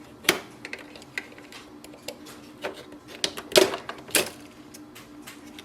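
Screwdriver prying and tapping at the plastic parts of an Epson EcoTank printer's print head assembly: scattered sharp clicks and knocks, the loudest a little past halfway.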